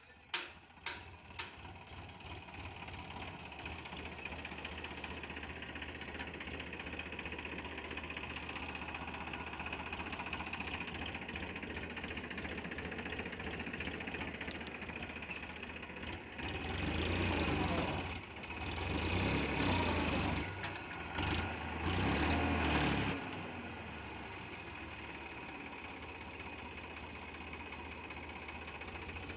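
Tractor diesel engine idling with a steady low hum, swelling louder in three surges for several seconds past the middle, then settling back. A few sharp knocks sound right at the start.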